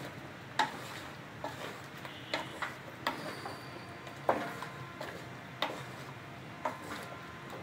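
Wooden spatula knocking and scraping against the side of an aluminium pot while stirring thick curry, giving irregular clicks and knocks about once a second.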